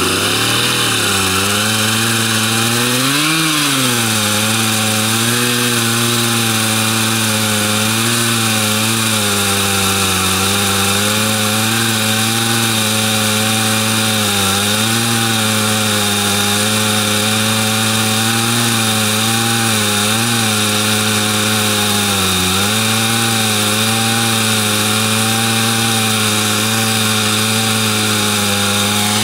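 Two-stroke chainsaw in a homemade chainsaw mill, running steadily at high revs while ripping lengthwise through a log. Its pitch rises and falls once about three seconds in and dips briefly about two-thirds of the way through.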